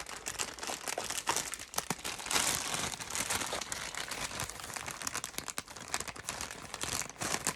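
Packaging being handled and opened: dense, irregular crinkling and rustling with short sharp crackles and bits of tearing.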